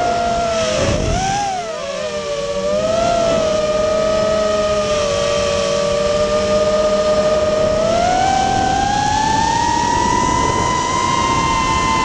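FPV racing quadcopter's brushless motors whining with the throttle. The pitch dips and swings briefly about a second in, holds steady, then climbs smoothly near the end as the throttle is pushed up.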